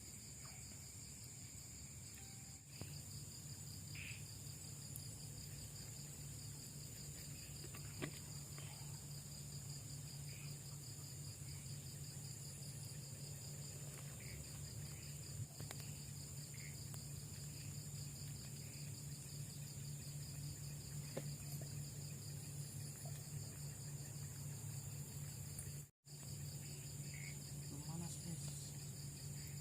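Night insects, cricket-like, trilling in a steady, evenly pulsing high chorus, over a low steady hum and a few faint clicks and taps. Near the end the sound drops out for an instant.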